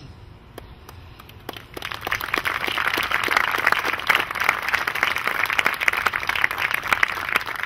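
Crowd applauding: a few scattered claps, then from about two seconds in a dense, steady round of clapping.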